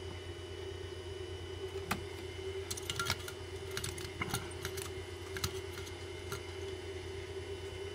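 Scattered light clicks and taps of small tools being handled and set down on a workbench, over a steady low hum.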